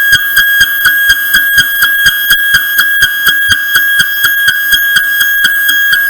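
Home-built CNC milling machine cutting steel: a steady high whine with a regular knock about five times a second.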